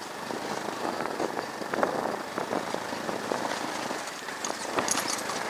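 Motorcycle riding over a rutted dirt track: the engine runs under a steady wash of noise, with frequent knocks and rattles as the bike jolts over bumps.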